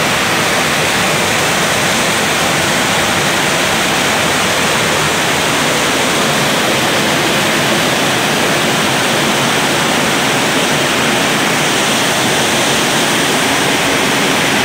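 Torrential rain and a swollen floodwater torrent rushing, a loud steady noise throughout.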